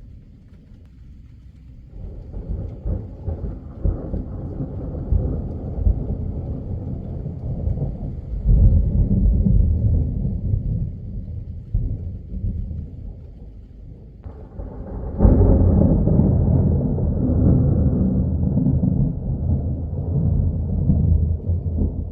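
Thunder rolling in a thunderstorm. A low rumble builds over several seconds and swells to a peak, then a second, louder peal breaks in suddenly about two-thirds of the way through and rumbles on for several seconds.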